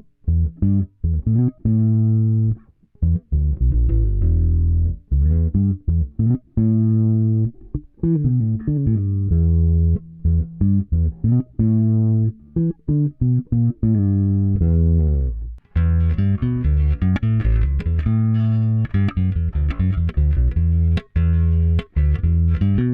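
Yamaha Pulser Bass 400 electric bass being played, a run of single plucked notes moving up and down in pitch. About sixteen seconds in the tone turns much brighter, with far more treble on each note.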